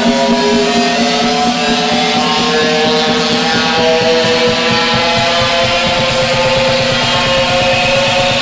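Electronic dance music from a DJ set: held synth notes over a steady low drone, with a fast pulsing bass rhythm growing stronger about halfway through.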